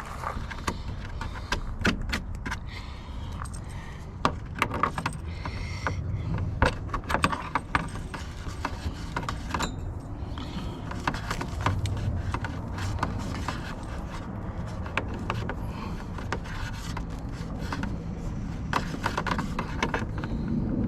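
Irregular clicks, taps and light rattles of hand work on small plastic and metal parts, fitting winch switch wiring into a dash panel, over a steady low rumble.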